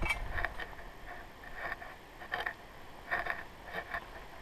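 Footsteps swishing through leafy forest undergrowth with gear rustling: about five soft, unevenly spaced steps.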